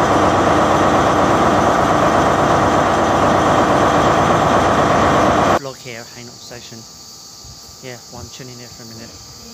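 A loud, steady rushing noise from the sound effect of an animated channel-logo intro, cutting off suddenly about five and a half seconds in. After it comes a man's voice, much quieter.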